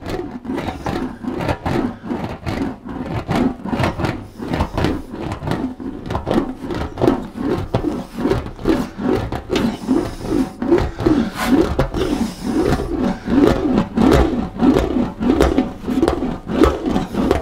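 An English wheel rolling a rear-guard panel back and forth between its wheels: a rhythmic rolling rumble that rises and falls in pitch with each stroke, about two strokes a second.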